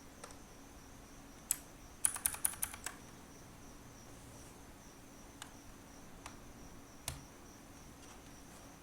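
Keys on a Ruyiniao K26 mechanical keyboard with clicky blue switches being pressed. Single clicks come a second or so apart, with a quick run of about seven keystrokes around two seconds in.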